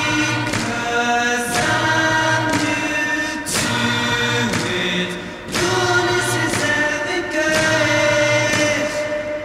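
Background music with sung voices holding long notes that change pitch every second or two over a steady low tone.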